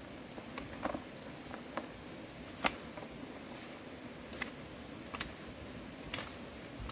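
Light, irregular taps and clicks, about eight of them, over a steady low hiss, the sharpest about two and a half seconds in.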